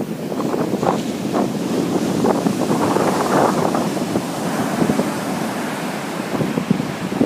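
Heavy surf breaking on a sandy beach, the roar swelling to a loud crash about three seconds in as a big wave breaks near the shore, then washing up the sand. Wind buffets the microphone throughout.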